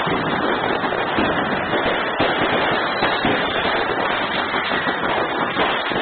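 Many fireworks going off at once: a dense, unbroken crackle of small bangs that never lets up.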